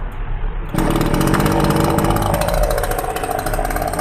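Two-stroke chainsaw engine running, coming up to high speed about a second in and holding there: a test run of the engine with its newly fitted piston.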